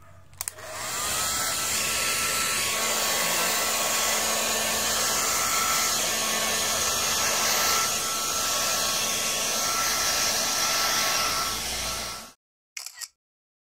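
Hair blow dryer switched on about a second in, its motor whining up to speed, then running steadily with a rush of air while drying a husky puppy's wet fur. It cuts off suddenly near the end, followed by a couple of short sounds.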